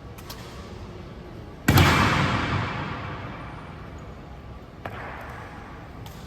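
An honor guard's rifle butt stamped on the stone floor: one loud crack about two seconds in that rings out in the hall's echo for over a second. A softer knock comes about three seconds later.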